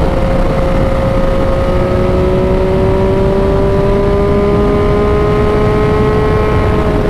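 Yamaha XSR900's inline three-cylinder engine under way on the road through an aftermarket Mavericks muffler, holding a steady pull with a whine that rises slowly in pitch, over heavy wind rush on the microphone.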